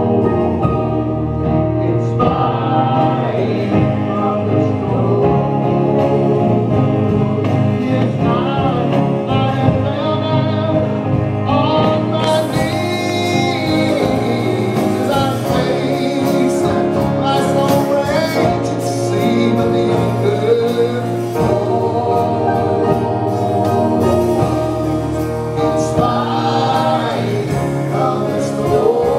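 A gospel vocal group singing in harmony, male and female voices together on microphones, with acoustic guitar accompaniment. The accompaniment grows fuller and brighter about twelve seconds in.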